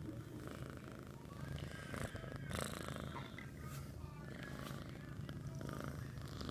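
Munchkin cat purring, the low hum pausing and resuming with its breaths, with a few short clicks or rustles about two seconds in.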